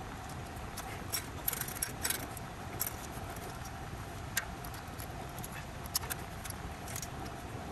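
Irregular light clicks and taps of a screwdriver and copper refrigerant tubing being handled inside an air handler, over a steady background hum.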